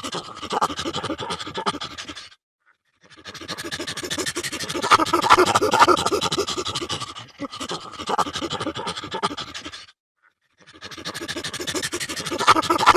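Frightened chimpanzee calling in fast, breathy pulsing bouts, broken by short silences about two and a half seconds and ten seconds in.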